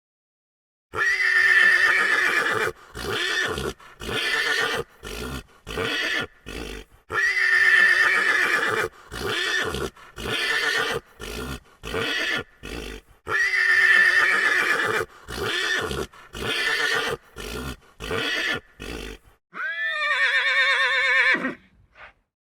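Horse neighing sound effect, played three times about six seconds apart: each time a long whinny followed by a run of short broken calls. A separate whinny with a rising and falling pitch comes near the end.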